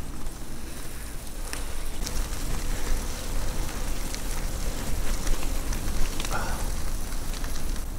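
Bicycle tyres rolling over a wet, muddy track: a steady crackling hiss dotted with small clicks of grit, over a constant low rumble.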